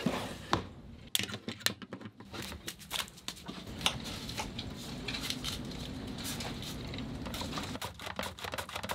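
Galley handling sounds: a drawer sliding open with knocks and clatter, then an even hiss. Near the end comes a fast run of clicking strokes as red onion is pushed across a mandoline slicer's blade.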